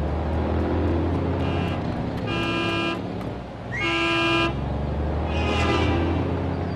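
A jeepney's engine running with a steady low rumble while its horn honks several times; the two longest blasts come in the middle, about a second and a half apart.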